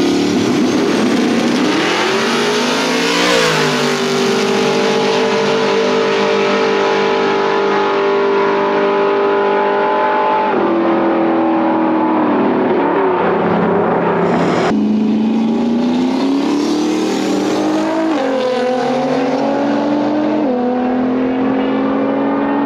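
Drag-racing cars launching and running down the strip: the engine note climbs as they leave the line, holds a steady high pitch, then falls away as they lift. Then another pass, the engine pitch climbing in steps with a drop at each upshift.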